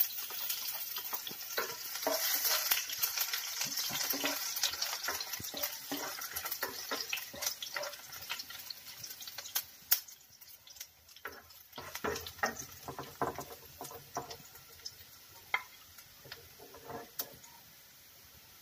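Chopped garlic sizzling in hot oil in a frying pan while a spatula stirs and scrapes it, the garlic being sautéed to brown. The sizzle dies down about halfway through, leaving scattered taps of the spatula on the pan.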